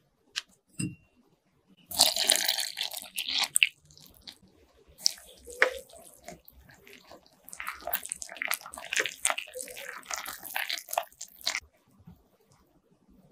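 Milk poured into a glass bowl of dry ingredients about two seconds in, then a wire whisk stirring the mixture into a batter, its wires clicking and scraping rapidly against the glass for several seconds.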